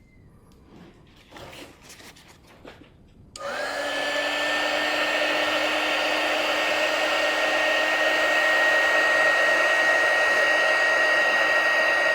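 A few light handling noises, then about three and a half seconds in a handheld hot-air blower switches on, its motor spinning up within a fraction of a second to a steady whine over a loud rush of air.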